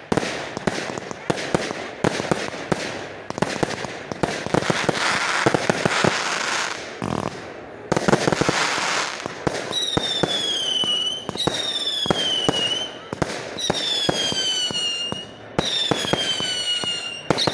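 Fireworks going off overhead: rapid bangs and crackling bursts, then from about ten seconds in a run of whistling shots, about five falling whistles each lasting a second and a half, with more bangs between them.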